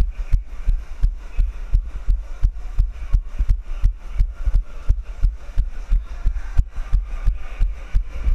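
A runner's footfalls jolting the camera they carry: steady low thumps in running rhythm, about three a second.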